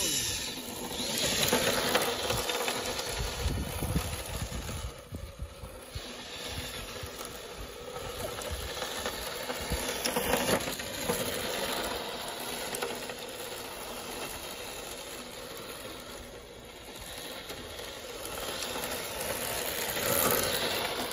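Electric radio-controlled drift car sliding on rough concrete: a hiss of hard drift tyres scrubbing sideways, with the motor's faint whine. It swells and fades several times as the car swings through its drifts.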